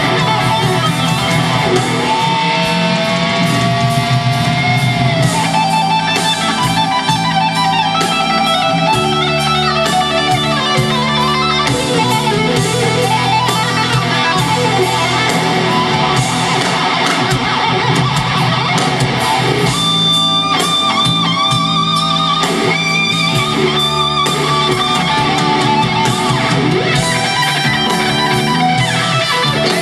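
Live rock performance: a lead electric guitar solo played through stacked amplifiers over bass and drums, with a long sustained note bent up and back down a few seconds in.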